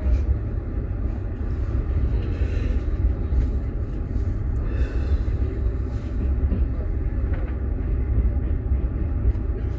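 Moving passenger train heard from inside a sleeper carriage: a steady low rumble, with faint brief higher sounds about two and a half and five seconds in.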